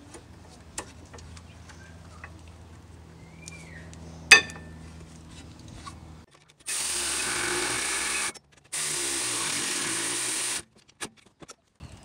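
Light metallic clicks as new brake pads are pushed into the caliper bracket, with one sharp click about four seconds in. Past the middle come two steady hissing noises of about two seconds each, loudest of all, starting and stopping abruptly.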